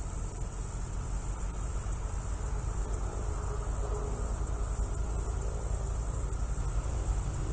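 Steady high-pitched insect chorus of summer-evening crickets or cicadas, over a continuous low rumble.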